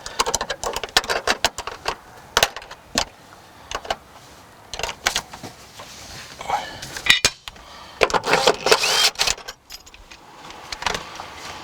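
Irregular clicks, knocks and metallic clatters of hand tools on car trim and fasteners: a socket wrench working the 10 mm bolts behind the rear interior panels.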